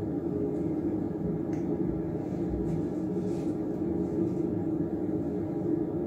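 Steady low hum of a ventilation fan in a small tiled room, with a few faint rustles on top.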